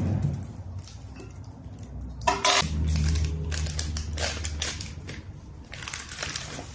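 Plastic and paper food packaging rustling and crinkling as it is handled, with a sharp knock about two seconds in and a low rumble for about two seconds after it.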